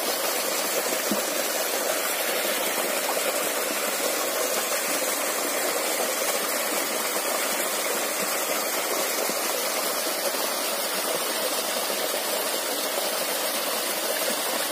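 A small waterfall pouring into a rocky stream pool: a steady, even rush of water.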